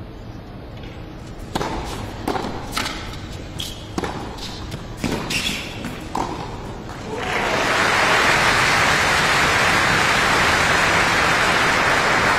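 Tennis rally: about nine sharp hits over some five seconds as the ball is struck by rackets and bounces on the court. About seven seconds in, the crowd breaks into loud applause, which is the loudest sound.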